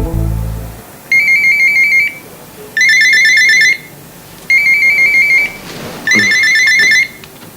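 Telephone ringing with an electronic trill: four rings of about a second each, evenly spaced.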